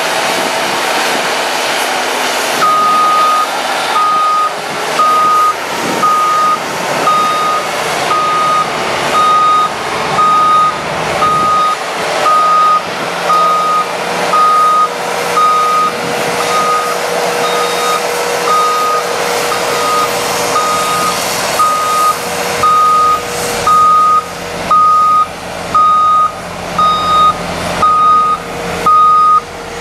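A concrete mixer truck's backup alarm beeping about once a second, starting a few seconds in, over the steady running of the truck's engine.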